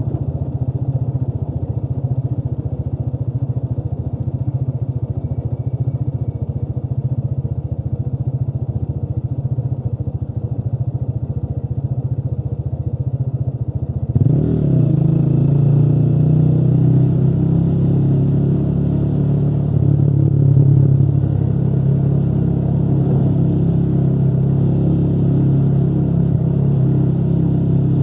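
Motorcycle engine running steadily while riding. About halfway through the pitch glides up quickly and the engine runs louder from then on, as the throttle is opened.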